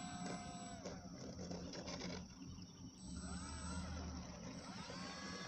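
Radio-controlled model airplane's motor, faint, with the plane on the ground after landing: a few light knocks in the first couple of seconds, then the motor's pitch rising and falling several times as it taxis.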